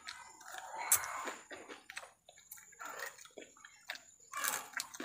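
Close, wet eating sounds: chewing and lip-smacking while eating rice by hand, heard as irregular clicks and smacks, the sharpest about a second in.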